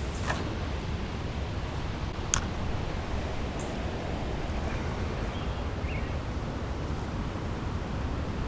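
Steady outdoor rushing noise by a river, with one sharp click a little over two seconds in.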